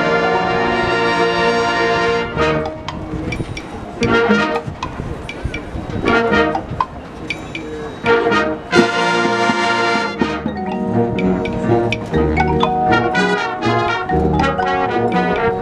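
Marching band brass playing a big-band swing chart. A full chord is held for about two seconds, then short accented chords are punched out with gaps between them, and the playing grows busier with low bass notes from about ten seconds in.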